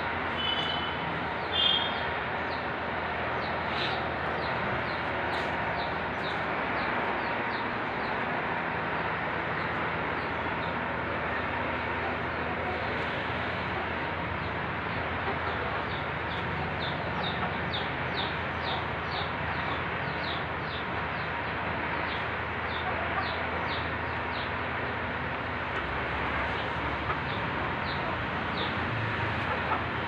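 Chicken peeping in short, high, falling peeps, about two a second, over a steady background hiss.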